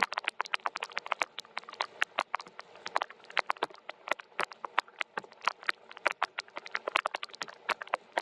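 Rain falling, with individual drops tapping on a hard surface as sharp, irregular ticks, several a second, over a faint steady hiss of lighter rain.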